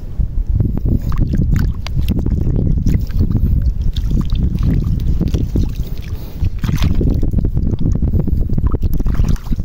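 Wind buffeting the microphone as a loud low rumble, with a hand sloshing and squelching through shallow water and soft tidal mud while digging for shellfish, in many small splashy crackles.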